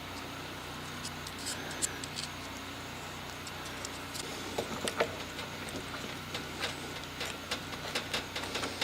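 Scattered light clicks and taps, sparse at first and more frequent from about halfway through, over a steady low hum.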